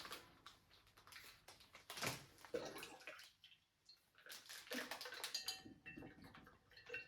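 Flower food being stirred into water in a vase: faint sloshing and scraping, with a short ringing clink against the vase about five seconds in.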